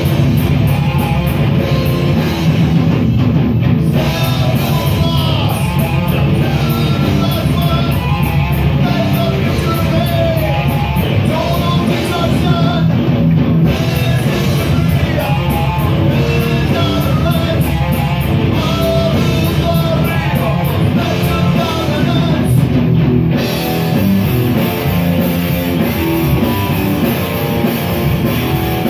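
Live heavy rock band playing loud: distorted electric guitars, a drum kit with fast cymbal hits, and a singer.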